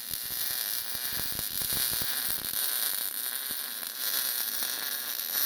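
MIG welding arc on mild steel: a steady crackling hiss, with dense sharp pops over the first couple of seconds that thin out after that.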